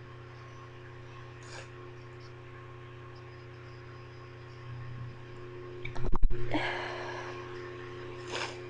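A stifled sneeze about six seconds in, with sharp knocks as the microphone shakes, then a breathy exhale. A short sniff or breath comes near the end, over a steady low electrical hum.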